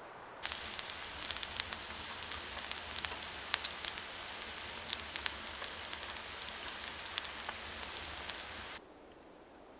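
Cabbage and onions frying in a pan, sizzling steadily with many small pops and crackles. It starts about half a second in and cuts off suddenly near the end.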